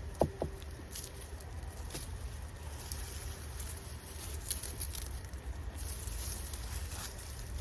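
Rustling and light crackling of dry garlic plants and soil as hardneck garlic is pulled by hand, with two sharp clicks just after the start. A steady low rumble runs underneath.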